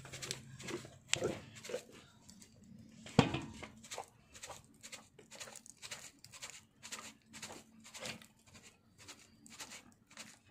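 A long stick knocking and scraping against a metal bowl as chunks of pork are pounded and mixed, two louder knocks about a second and three seconds in, then a steady run of two to three knocks a second.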